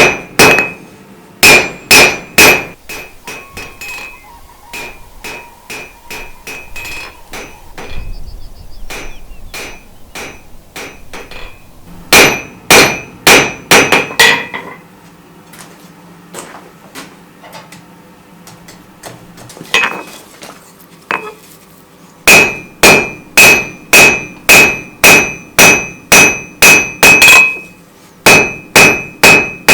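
Rounding hammer striking hot steel on an anvil in runs of quick, even blows, about two a second, with a ringing anvil tone. The runs are broken by pauses, with a single blow about twenty seconds in and a longer steady run near the end.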